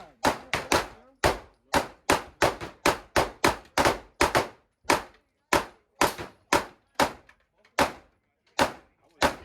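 Gunfire: a rapid string of single shots from a semi-automatic firearm, about two to three shots a second, fired as fast as the trigger is pulled, with a brief pause partway through.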